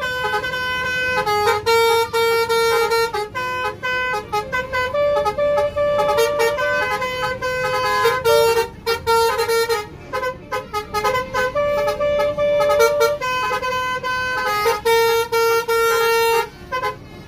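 Basuri 'telolet' multi-tone bus horn playing a melody: a string of held horn notes stepping between a few pitches, with short breaks between phrases and a longer pause about halfway through.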